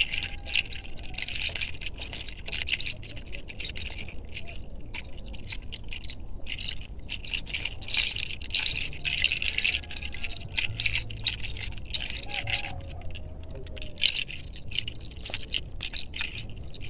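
Close, scratchy rubbing and rustling in quick, uneven strokes: a wooden massage spoon and hands being worked over hair and clothing right beside a clip-on microphone.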